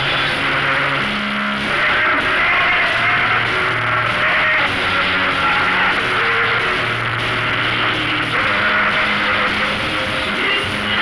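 Live band music with electric guitar and drums, loud and steady, held bass notes changing every second or so.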